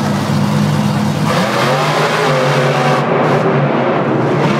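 Monster truck engines running hard during a race; the engine note drops about a second and a half in, then holds steady.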